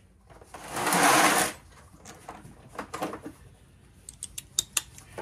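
Hand tools being handled: about a second of fast ratchet clicking from a socket ratchet fitted with a 6 mm Allen bit, then scattered sharp metal clinks of tools from the socket set case.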